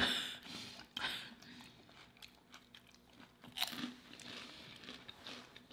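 Crunchy chewing of crisp potato chips close to the microphone, a few separate crunches.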